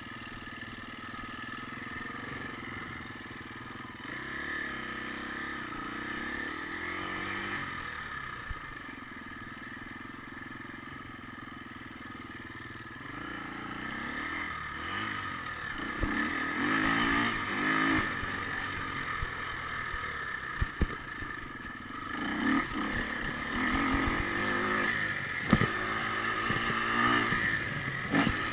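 Husqvarna FE 250's single-cylinder four-stroke engine running as the bike is ridden over dirt, its revs rising and falling with the throttle. It gets louder and is revved harder from about halfway through, with a few sharp knocks.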